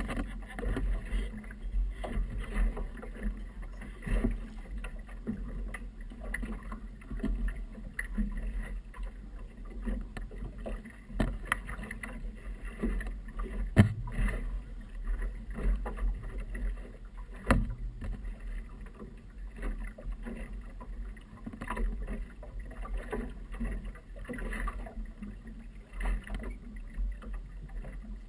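Wind buffeting the microphone with water slapping against a small motorboat's hull, broken by irregular knocks; the two loudest knocks come about 14 and 17½ seconds in.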